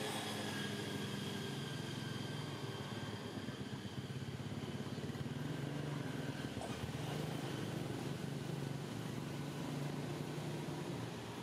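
Steady low rumble of a motor running, with a faint hiss above it.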